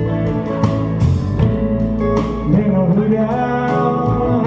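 Live country music: a man singing over guitar accompaniment, with a long wavering sung note in the second half.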